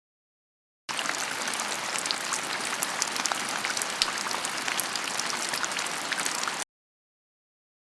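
A dense crackling hiss made of many tiny pattering clicks, starting suddenly about a second in and cutting off abruptly near the end.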